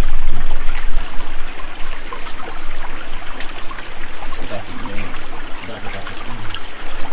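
A small creek's water running and trickling over rocks, a steady rushing hiss, with a low rumble during the first second.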